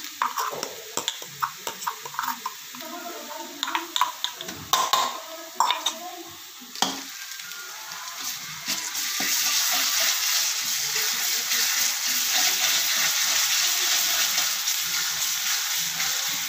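Spatula scraping and stirring chopped onions in hot ghee in a kadhai, with frying sizzle and scattered clicks of the spatula on the pan. About halfway through, the sizzle grows louder and steady as green chilli and garlic paste (thecha) fries in the ghee.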